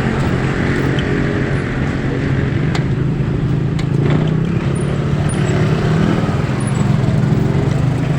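A vehicle's engine running steadily while travelling on a road, with tyre and traffic noise.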